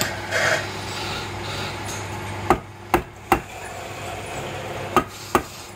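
A lathe's jaw chuck and T-handle chuck key give sharp clicks as the chuck is tightened on a wooden blank: three quick ones a few seconds in, then two more near the end. A steady machine hum runs underneath and drops a little after the first click.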